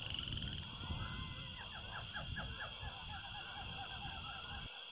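Outdoor birdsong: a bird or birds giving a rapid series of short, falling call notes over a steady high-pitched drone, with a low rumble underneath that stops shortly before the end.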